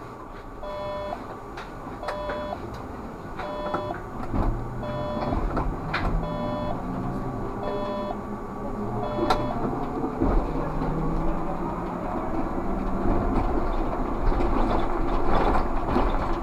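Inside a Škoda 30Tr trolleybus cab, a two-tone electronic beep repeats about every one and a half seconds and stops about nine seconds in. Then the trolleybus's low running rumble rises as it pulls away from the stop and gathers speed.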